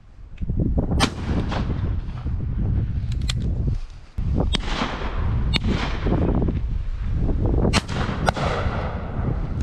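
Shotguns firing on a driven duck shoot: about eight irregularly spaced shots, some sharp and loud, others fainter, over a steady low rumble of wind on the microphone.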